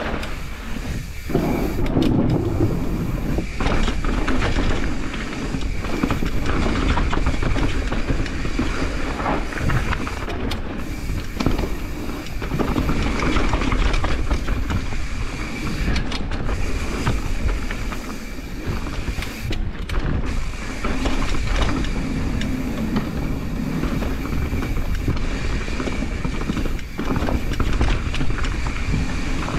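Downhill mountain bike ridden fast over rough trail: a continuous clattering rattle of chain and frame and tyres on dirt, over a steady low rumble.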